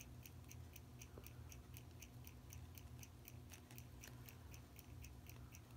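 Faint, steady ticking of a running mechanical watch, about five ticks a second, over a low electrical hum.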